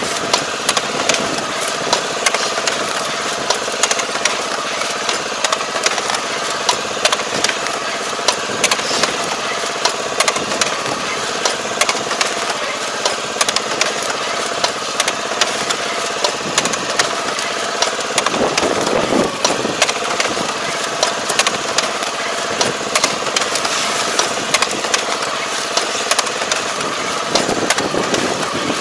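Tobacco transplanting machine running steadily in the field: a constant engine drone with frequent sharp clicks and clatter from the planting mechanism.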